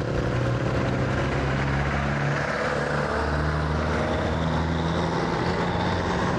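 Motorcycle engine running while under way, its pitch shifting a little, with steady wind and road noise.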